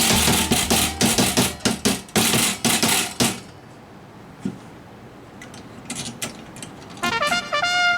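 Background music with a clattering percussive beat that stops about three seconds in, then a quieter stretch with a few faint clicks. Near the end comes a short chime-like run of pitched notes.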